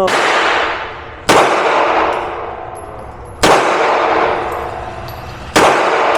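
Four pistol shots, fired slowly about two seconds apart. Each crack is followed by a long ringing decay.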